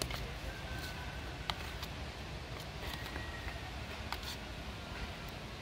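Metal spoon stirring a thick garlic-sauce and cilantro paste in a small white bowl: soft scraping with a few light clicks of the spoon against the bowl, over low steady background noise.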